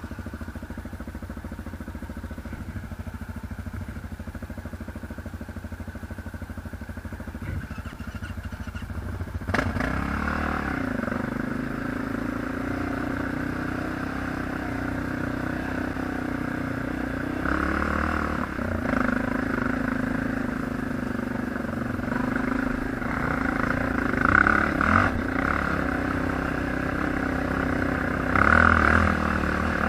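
ATV engine running: a steady low hum at first, then about ten seconds in it gets suddenly louder and keeps running at higher revs, swelling with bursts of throttle a few times near the end.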